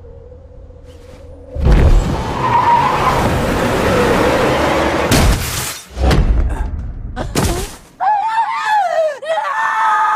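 Film sound of a car crash: a sudden loud impact about a second and a half in, then several seconds of crunching and shattering glass broken by brief gaps. From about eight seconds a wavering high-pitched tone takes over.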